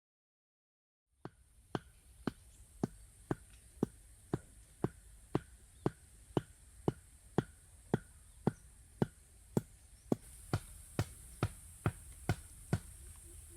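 Sharp, evenly spaced taps or knocks, about two a second, starting about a second in over a steady high hiss.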